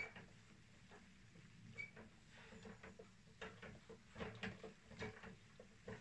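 Near silence with faint, irregular clicks and taps, coming more thickly in the second half.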